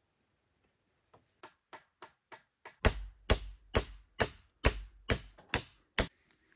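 A hand tool striking wood in a steady rhythm. It starts as a run of light taps about a second in and builds to eight heavy blows about two a second, each carrying a deep thud.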